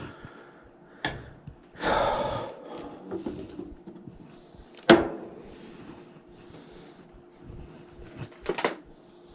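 Handling noises from hooking tubing up to a furnace's pressure switches: a click, a short rustle about two seconds in, a sharp knock about five seconds in (the loudest), and another knock near the end, over a faint steady hum.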